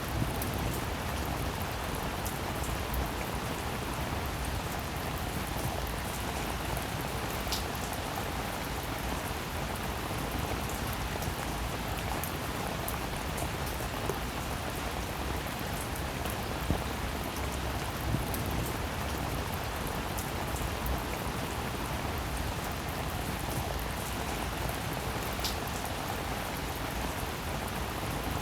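Steady rain falling, with individual drops tapping sharply now and then over the even hiss.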